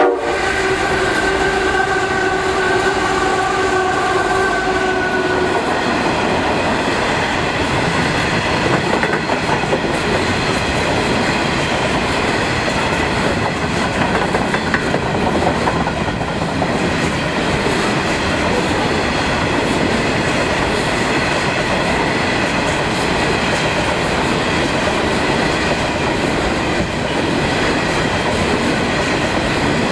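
Pacific National 92 class diesel locomotive sounding a held horn note for about five seconds as it passes close by, then empty coal hopper wagons rolling past with a steady rumble and wheel clatter.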